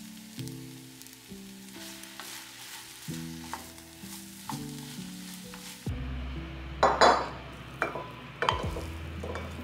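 Fried rice sizzling in a nonstick frying pan as it is stirred with a spatula, over soft background music. About six seconds in the sizzle gives way to a few sharp scrapes and knocks as the spatula scoops the rice out of the pan into a ceramic bowl, the loudest about a second after the change.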